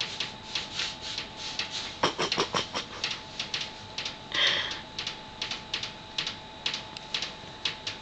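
A conure pecking and tugging at a paper towel: irregular crinkling taps and rustles of paper and beak, thickest about two seconds in, with one short chirp from the bird about four and a half seconds in.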